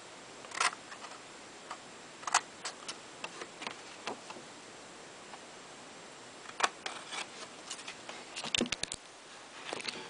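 Scissors snipping through an index card: scattered short, sharp snips with pauses between them, a quick cluster of several near the end.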